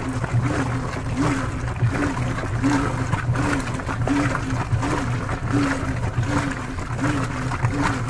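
Brastemp Vantage 8.5 kg high-efficiency top-load washing machine agitating its load: the motor drives the wash plate back and forth, giving a whine that rises and falls in a steady rhythm about twice a second, with water swishing in the drum.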